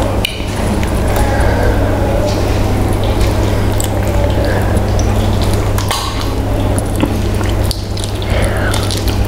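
Wet squelching and tearing of a gravy-soaked whole fried chicken being pulled apart by hand, with many small clicks, over a steady low hum.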